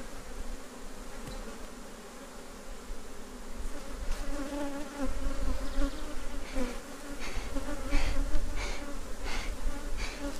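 Honeybees buzzing steadily around an opened hive. From about six seconds in, a bee smoker's bellows is puffed repeatedly, about one short puff every 0.7 seconds.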